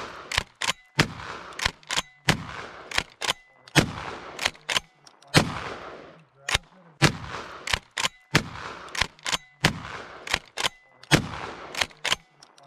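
Rock Island Armory 20-gauge pump-action shotgun firing Winchester Super X #3 buckshot in quick succession, about one shot every second and a half, each shot echoing. Smaller metallic clacks of the action being worked fall between the shots.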